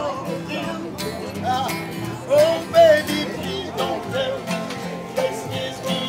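Country-style guitar music playing amid the chatter of a market crowd, with a voice rising louder twice about halfway through.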